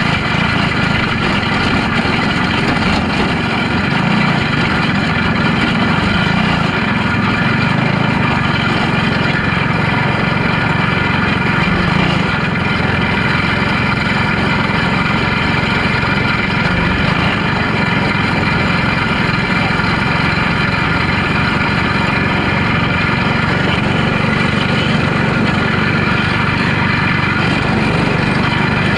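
Box stock micro sprint car's engine running steadily at low, near-idle speed, heard close from the car.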